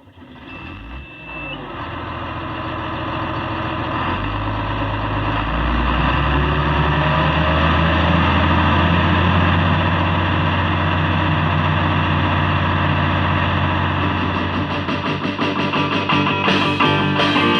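Intro music: a distorted electric guitar fades in with sustained chords over a low drone, and a strummed rhythm starts near the end.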